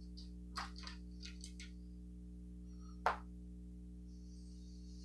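A few light clicks and taps of small objects being handled, with one sharper click about three seconds in, over a steady low electrical hum.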